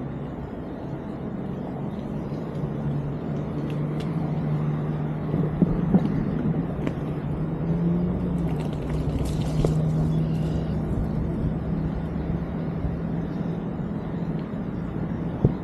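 Mountain bike rolling along a trail: the tyres give a steady hum and rumble that shifts slightly in pitch, with a couple of sharp knocks from bumps about five to six seconds in.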